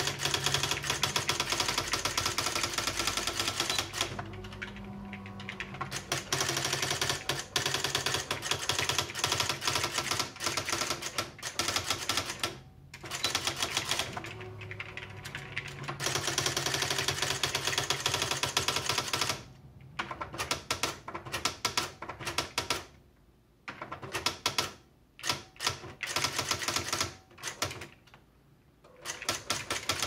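Sharp PA-3110II electronic daisywheel typewriter printing as it is typed on: rapid runs of clacking print strikes broken by short pauses. In the last third the strikes come more sparsely.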